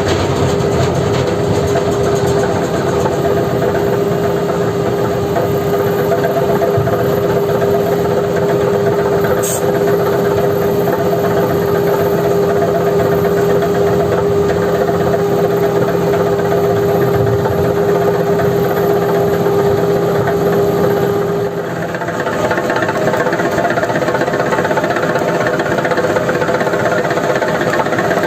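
Heavy diesel engine running steadily under load, with a steady whine over the engine noise. About three quarters of the way through, the whine stops, the level dips briefly and the engine note changes.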